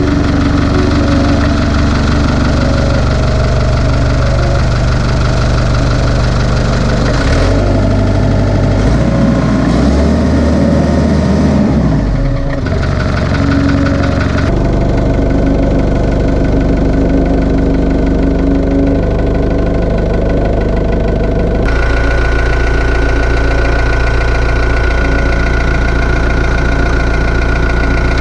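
Diesel engine of a 1995 Hitachi EX100-3 excavator running loudly on a freshly fitted throttle cable and muffler. Its speed steps up and down several times as the new throttle cable is tried across its settings.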